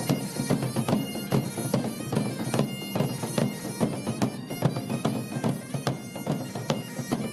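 Instrumental background music with a steady drum beat under sustained held tones.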